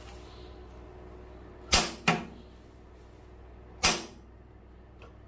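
Sharp clicks from an oven's controls being set as it is switched on: two close together about two seconds in, another near four seconds, and a faint one near the end.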